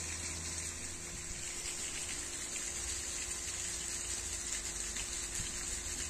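Steady rushing noise of running water, with a constant high hiss above it.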